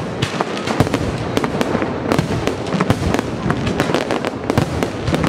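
Aerial firework shells bursting in quick succession: a dense run of sharp bangs, several a second, one after another.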